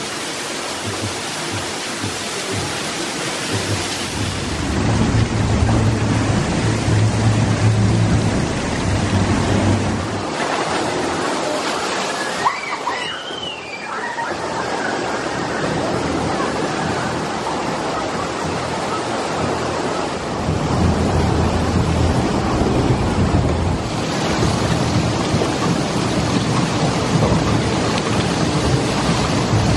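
Steady rushing and splashing water from a water-flume ride, shifting in level several times.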